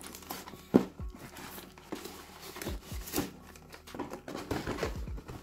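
Clipper packaging being opened by hand: rustling and crinkling with scattered light knocks as the contents are handled, the loudest a sharp knock just under a second in.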